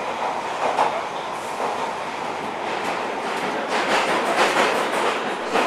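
London Underground Piccadilly line train running at speed through a deep-level tunnel, heard from inside the carriage as a steady rushing rumble. The wheels clatter over the rail joints, more loudly about four seconds in and again near the end.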